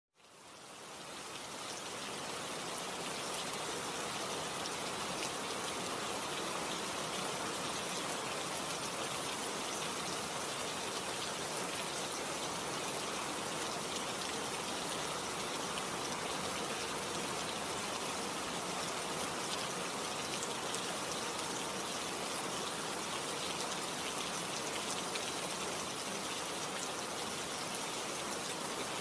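Steady rain falling, an even hiss with fine pattering drops. It fades in from silence over the first couple of seconds.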